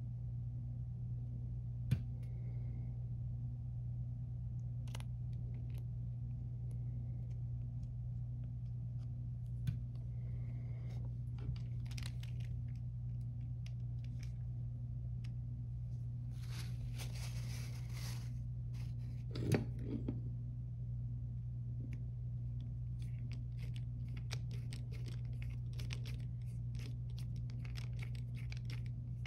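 Carburetor parts and small tools handled on a workbench, over a steady low hum. Scattered small clicks and knocks, a hiss lasting about two seconds past the middle followed at once by a louder knock, and a run of quick light clicks near the end.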